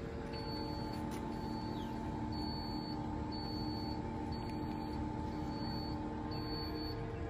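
Steady hum of an egg incubator's fan and motor, with a faint high tone that repeats about once a second.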